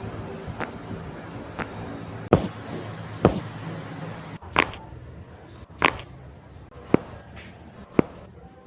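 A series of sharp strikes on the body during back treatment, about one a second and some louder than others, over a low steady hum.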